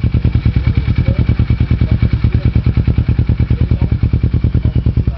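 Motorcycle with a Roncar Coyote TRS carbon slip-on exhaust, idling steadily with an even, rapid exhaust pulse.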